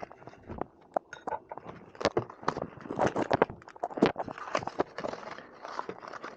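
A new RC servo being unpacked by hand: plastic packaging crinkling and rustling, with many irregular small clicks and taps of plastic parts being handled.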